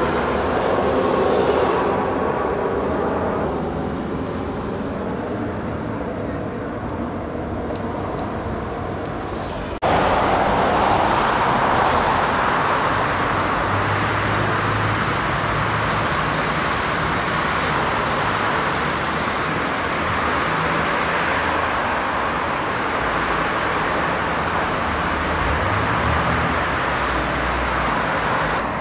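Steady road traffic noise, a continuous wash of passing vehicles with no single event standing out. It breaks off sharply about ten seconds in and resumes slightly louder.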